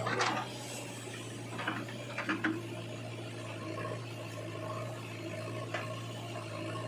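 Heavy machinery's diesel engine running steadily with a low, even hum, with a few light knocks about two seconds in and again near the end.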